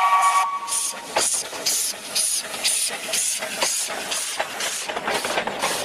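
Steam locomotive passing close by: its steam whistle sounds a steady chord that cuts off about half a second in, then the exhaust chuffs in even beats about twice a second, with a hiss of steam.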